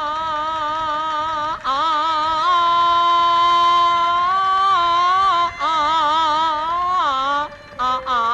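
Peking opera music: a single high melodic line of long held notes with wavering vibrato, stepping between pitches and breaking off briefly a few times.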